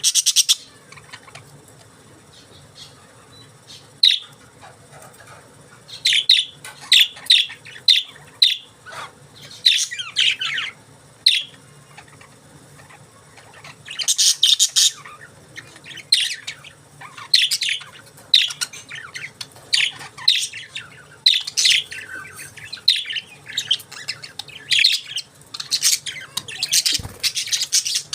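Pet budgerigars chirping in short, rapid calls that come in irregular bursts, sparse at first and busier in the second half.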